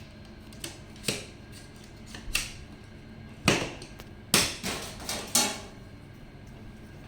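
A series of about seven sharp knocks and clatters of hard objects being handled, irregularly spaced, the loudest clustered in the middle, over a faint steady hum.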